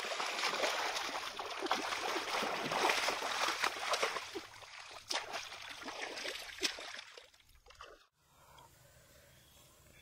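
Muddy shallow water sloshing and splashing as a person kneels and gropes through it by hand, with many sharp splashes among the churning. It stops abruptly about eight seconds in, leaving only a faint low background.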